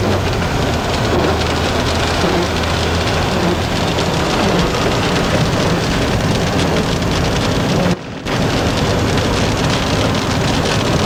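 Steady rushing road and wind noise with a low engine hum inside a moving car, cutting out briefly about eight seconds in.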